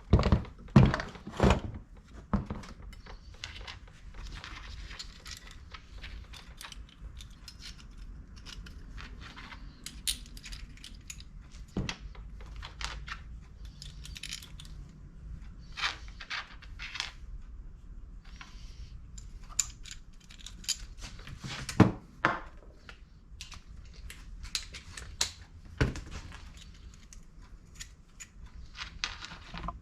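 Irregular metallic clinks, taps and knocks of hand tools and bolts against engine parts on a workbench, from a motorcycle crankcase being bolted together.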